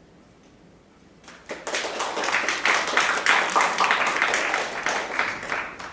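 Audience applause that starts after a brief hush about a second in, many hands clapping together, and eases off near the end.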